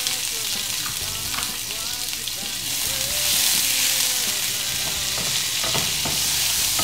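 A frozen strip of garlic-and-herb aglio e olio sauce sizzling in hot olive oil in a non-stick frying pan as it melts, with a wooden spatula stirring it. The sizzle grows louder from about three seconds in, as steam rises off the pan.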